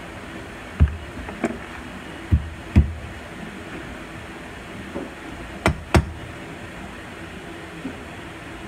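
Six sharp knocks or clicks at uneven intervals, the last two close together and the loudest, over a steady background hum.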